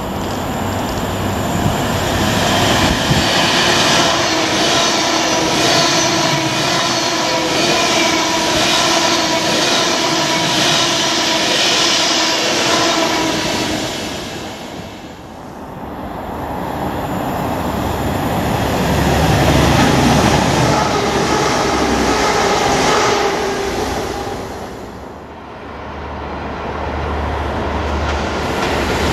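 A passenger train runs through at speed, a rushing noise with a steady whine that builds over the first few seconds, holds, then dies away at about fifteen seconds. Then another train approaches with a low engine drone. The sound swells, fades and swells again toward the end.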